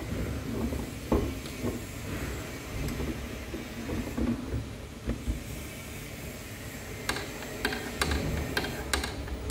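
Hands working on a moped engine at a workbench: low handling rumble with scattered light clicks of metal parts, and a quick run of sharp clicks near the end.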